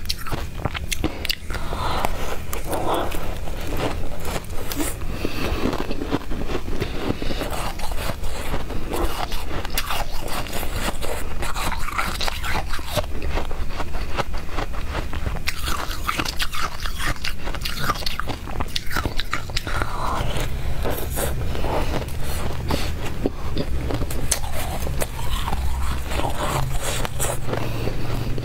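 Close-miked crunching and chewing of blue-dyed crushed ice eaten by the spoonful, the icy crystals cracking between the teeth in a dense, continuous stream of small crunches. A spoon scrapes through the ice in between bites.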